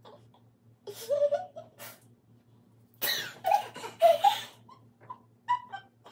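Women laughing: a short giggle about a second in, then a louder bout of laughter from about three to four and a half seconds, with a few brief giggles near the end.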